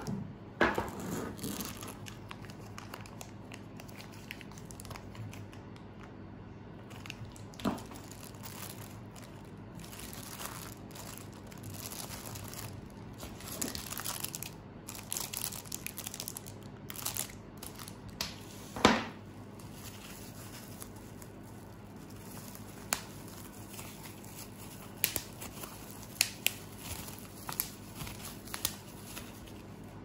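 Clear plastic packaging bags crinkling and rustling as small water-cooling parts are unwrapped by hand, with scattered sharp crackles and clicks. The loudest crackle comes a little past halfway, and a cluster of clicks follows near the end.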